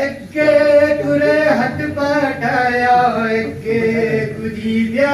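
A man singing verses of a poem in long, held melodic lines, a sung tarannum-style recitation, his voice carried by a microphone and PA in a hall. There is a short breath just after the start.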